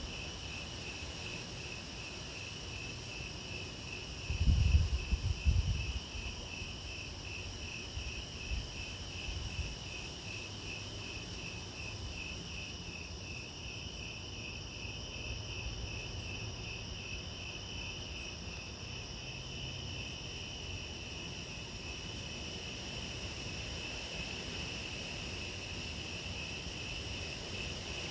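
Crickets chirping at night in a steady, evenly pulsed rhythm, with a steady higher insect tone above it. About four seconds in, a low rumble swells into a couple of seconds of loud irregular thumping, then settles back to a faint low rumble.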